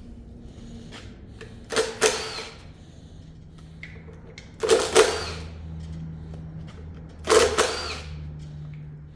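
Hand-held power tool run in three short bursts about two and a half seconds apart, as bolts holding the sensors are loosened on the engine.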